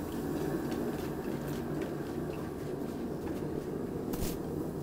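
A person running barefoot-light through snow with faint footfalls, then a soft thud about four seconds in as he dives belly-first into the snow, over a steady low background rumble.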